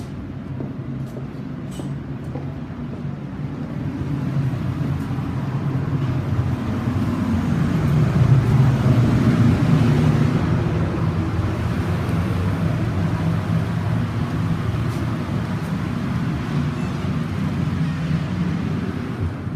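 A large engine or machine running steadily with a low hum. It grows louder to a peak about eight to ten seconds in, then holds.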